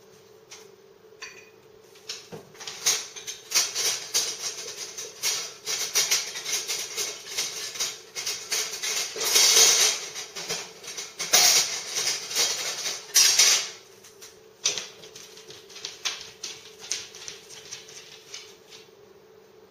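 A dog rummaging among things on a kitchen counter: a dense run of clicks, rattles and knocks, loudest in a few bursts near the middle, pausing briefly and then dying away near the end.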